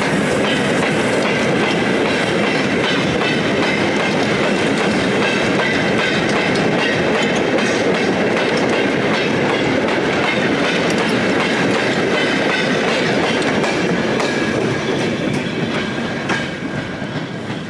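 A heritage freight train of four-wheeled goods vans rolling past close by, a steady loud rumble and clatter of wheels on the rails. It eases off about fifteen seconds in as the last vans go by, with a few sharp clacks near the end.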